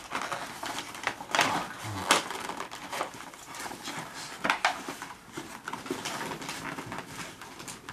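A box and its packaging being handled and pulled open: rustling and scraping with a few sharp knocks, about one and a half, two and four and a half seconds in.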